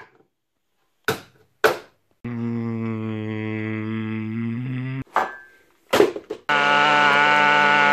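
Clicks of a NutriBullet blade base being screwed onto its cup, then a steady droning hum for about three seconds whose pitch steps down just before it stops. The cup knocks as it is pressed onto the base, and about six and a half seconds in the NutriBullet motor starts blending, running steadily and loudly.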